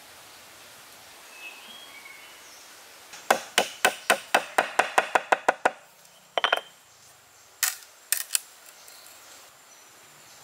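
Hand-tool blows during building work: a quick run of about a dozen sharp strikes, about five a second, then a double strike and three single strikes.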